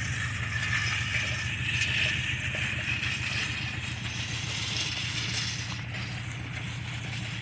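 An engine running steadily at a constant speed, a low even hum with a fast pulse, while hay is being baled.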